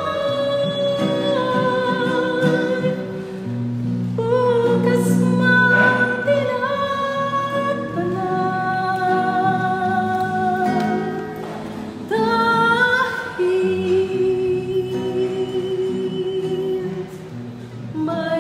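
Slow sung music: a voice holds long notes that glide between pitches over sustained low accompanying chords.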